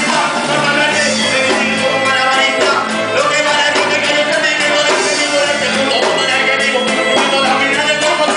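Music with a singing voice over a steady, busy beat.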